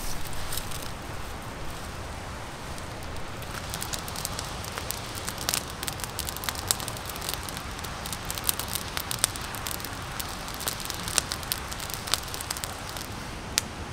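Small campfire of dry driftwood twigs and sticks crackling and popping as the freshly lit kindling catches. The pops are sparse at first and come much more often after a few seconds.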